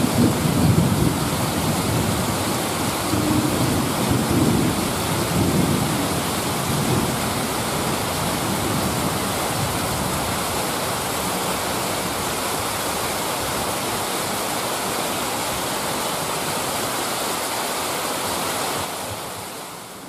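Heavy rain falling steadily in a downpour, with gusts of wind rumbling through it in the first few seconds; it fades out near the end.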